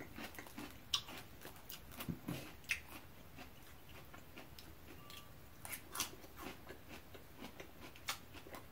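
Close-up chewing of a raw Thai salad of bean sprouts, cucumber, tomato and tofu in peanut dressing: soft wet crunches and mouth clicks, with a few sharper crunches scattered through.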